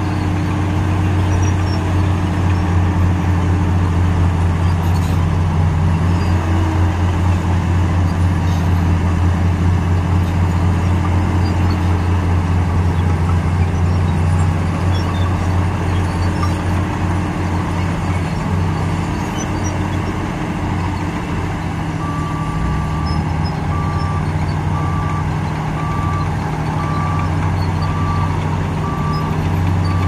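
Heavy eight-wheel dump truck's diesel engine running steadily while the hydraulic hoist raises the loaded bed to tip out soil. About two-thirds of the way through, a warning beeper starts, sounding short beeps about once a second.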